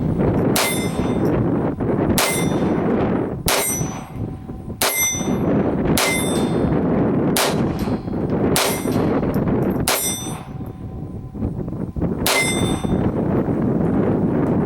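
Colt Woodsman Match Target .22 LR semi-automatic pistol fired nine times, about one shot every second and a half, with a longer pause before the last. Each shot is followed by a short metallic ring, over steady wind noise on the microphone.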